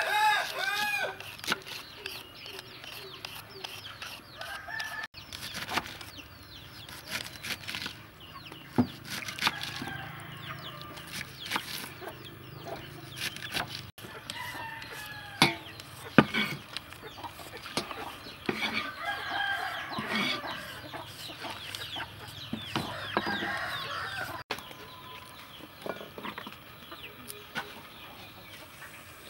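Chickens clucking in short repeated calls, loudest in the first second and again later on, over scattered sharp clicks and knocks of vegetables being shredded and cut by hand.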